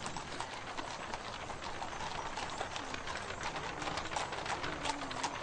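Hooves of several horses clip-clopping, a dense, irregular run of hoofbeats as a two-horse chariot and mounted riders move off.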